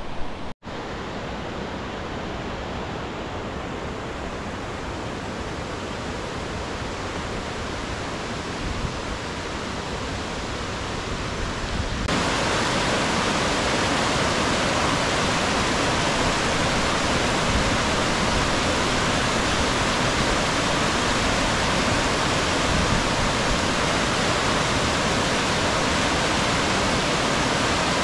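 Steady rush of river water, which jumps louder about twelve seconds in to the full sound of water pouring over a concrete weir.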